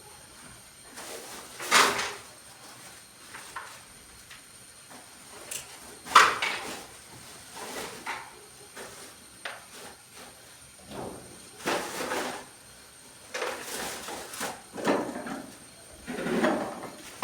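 Several separate knocks and clatters of household objects being handled and moved during housework, spaced a few seconds apart.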